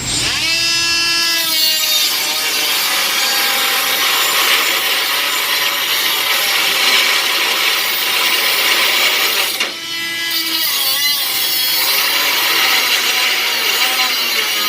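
Milwaukee M12 cordless angle die grinder spinning up and cutting, its blade giving a steady harsh rasp over the motor's whine. About ten seconds in, the cutting noise briefly drops away, leaving the motor's whine, then the cutting resumes.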